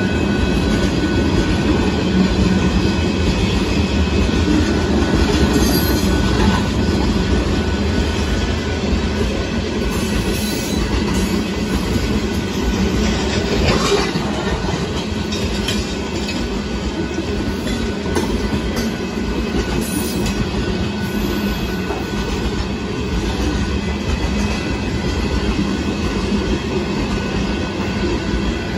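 Loaded open-top freight cars of a rock train rolling past close by: a steady rumble and rattle of steel wheels on the rail, with occasional sharper clanks.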